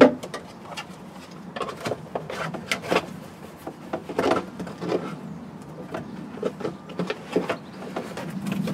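Hard plastic car interior trim pieces being handled and pushed into place against carpet and metal: irregular clicks, knocks and scrapes, over a faint steady low hum.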